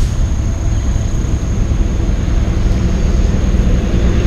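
Wind buffeting the camera microphone: a loud, fluttering low rumble, with a thin steady high whine running through it.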